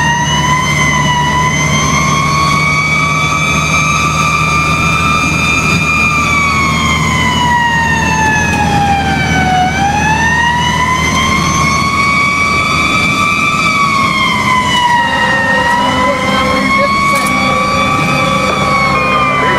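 Fire truck siren wailing, its pitch rising and falling in slow sweeps, heard from inside the cab over the hum of the truck's engine. About three quarters of the way through, a second steady tone joins the wail.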